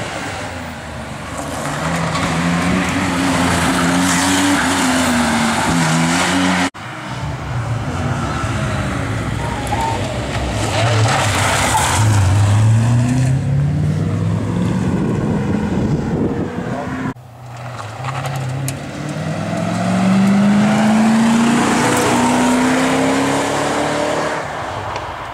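Historic rally cars accelerating hard past on a stage, engine pitch climbing as each pulls away, in three separate passes joined by abrupt cuts. Among them are a Porsche 911's air-cooled flat-six and a Porsche 928's V8.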